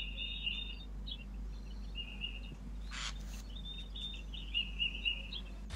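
Birds chirping in repeated runs of short, high calls, with a brief rustle about three seconds in.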